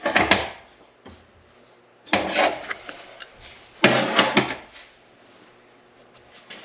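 Three short bursts of metal clattering and knocking, each about half a second long, near the start, about two seconds in and about four seconds in.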